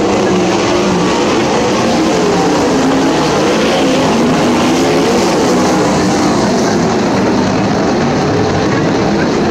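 A pack of sprint cars' V8 engines racing past, several engine notes rising and falling over one another without a break.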